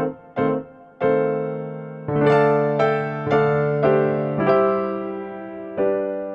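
Background music on a piano-like keyboard: a few short notes, then held chords with each note struck and slowly dying away.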